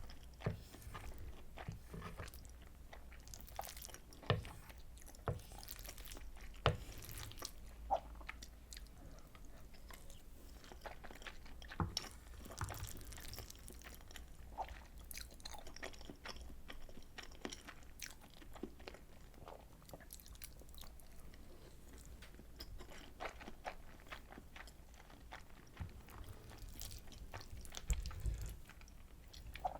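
Close-miked chewing and biting of soy sauce butter egg rice: irregular wet mouth clicks and smacks with some crunching, in a small room.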